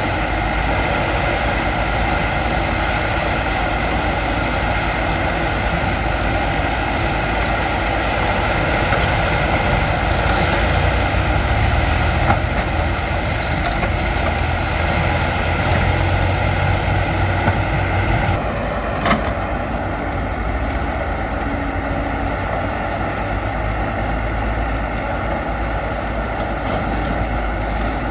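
Escorts backhoe loader's diesel engine running steadily while it works, with a couple of brief knocks about twelve and nineteen seconds in; the engine note drops slightly after the second.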